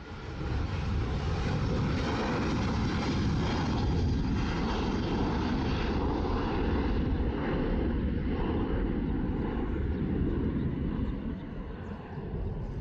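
Jet engines of a Boeing 737-800 at takeoff thrust as it rolls down the runway and lifts off: a loud, steady, deep roar that swells about half a second in and eases slightly near the end as the plane climbs away.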